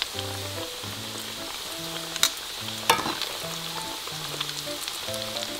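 Breaded jalapeño peppers deep-frying in hot oil: a steady bubbling sizzle, with two sharp clicks a little over two and about three seconds in.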